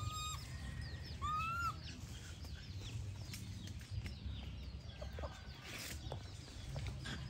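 Chickens calling: a scatter of short, high, falling peeps throughout, with two longer calls in the first two seconds, over a steady low rumble.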